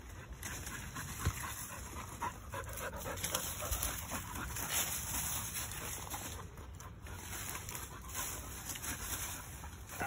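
A dog panting hard while it noses through dry leaves and twigs, with crackling rustles of the brush.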